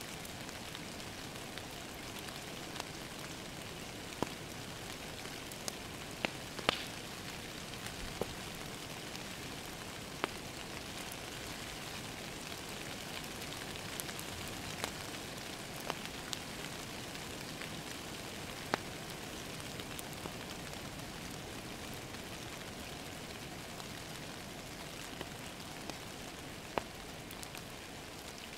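Steady rain hiss, with sharp pops and crackles from a burning wood fire scattered irregularly through it, a few louder pops bunched together partway through.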